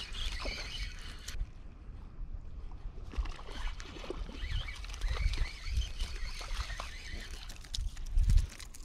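Small splashes in ankle-deep water as a small fish hooked on a spinning rod is played in, with scattered clicks over an uneven low rumble; a louder low thump comes about eight seconds in.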